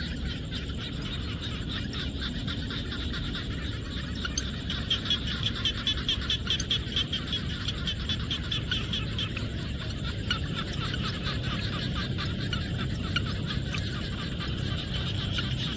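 A chorus of frogs calling in a rice field, many rapid repeated croaks overlapping, busiest in the middle, over a steady high insect drone.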